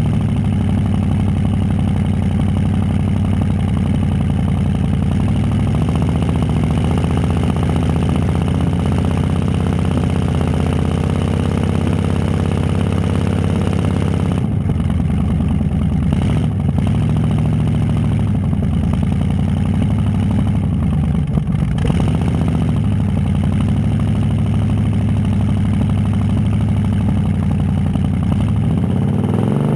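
Demolition derby car's engine idling and being revved up and down several times, heard from the dash cam inside the car.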